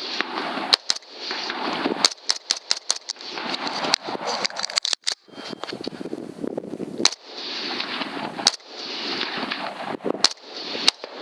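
Rifle shots from several hunters firing semi-automatic .223 rifles at running hogs. A rapid string of about six shots comes about two seconds in, with single shots spread out before and after. A steady rushing noise sits behind the shots.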